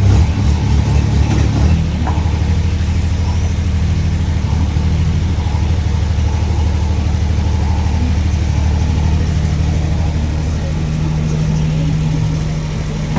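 A digger's engine running, uneven under changing load for the first two seconds, then steady.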